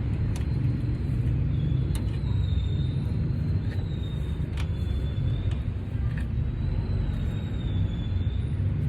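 A motor vehicle engine running with a steady low rumble, with a few sharp metallic clicks from hand work on the cable terminal.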